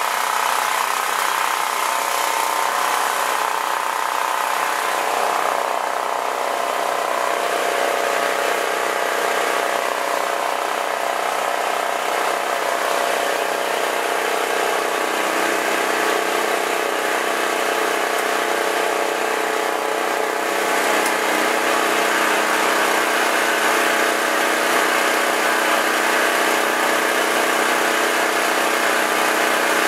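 Portable generator engine running steadily after being started. It gets a little louder and fuller about two-thirds of the way through.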